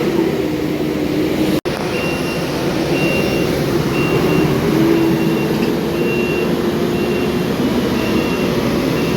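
Diesel engine of a heavy farm machine running on the silage pit, its pitch shifting a little; after a brief break in the sound about one and a half seconds in, its reversing alarm starts beeping steadily, a little more than once a second.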